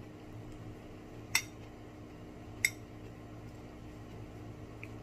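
Two sharp, ringing clinks of tableware, about a second and a half apart, over a steady low hum.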